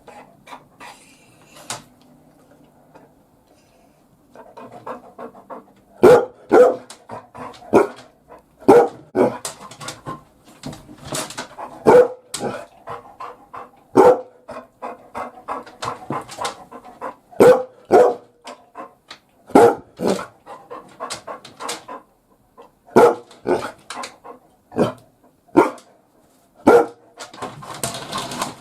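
Labrador retriever giving warning barks as a watchdog: loud single barks, one every second or two, starting about four seconds in after a quiet stretch.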